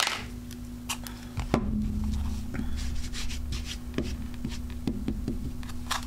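Handling of a plastic ink pad case and an acrylic stamp block on a desk: a sharp click right at the start, then scattered light clicks, taps and rubbing as the ink pad is opened and dabbed onto the stamp, over a steady low hum.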